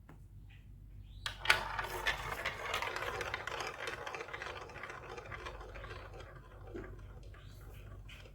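Marbles rolling and clattering down a plastic Lego Duplo block track. A few sharp clicks come about a second in, then a dense rattle of many marbles sets in and thins out over several seconds, with a few last clicks near the end.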